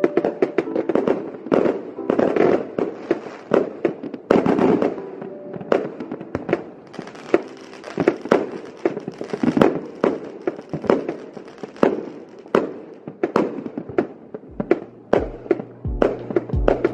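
Fireworks going off overhead: a dense, irregular run of sharp bangs and crackling pops from aerial shells, several a second.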